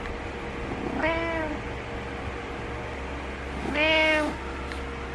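Orange-and-white cat meowing twice, each meow about half a second long, the second louder: demanding meows from a cat that wants its owner up.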